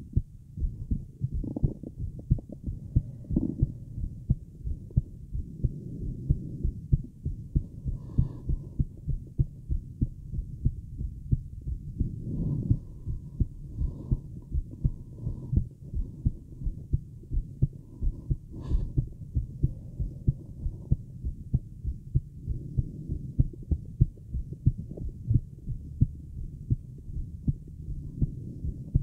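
A woman's own heartbeat heard through a Littmann acoustic stethoscope with a mic on it: fast, regular low thuds. There are a couple of brief rubbing knocks from the chestpiece, the clearest about two-thirds of the way through.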